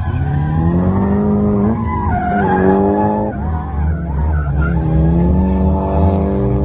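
Drift car's engine revving hard, its pitch climbing, dropping a little past the middle and holding high again, with the tyres skidding and squealing as the car slides sideways.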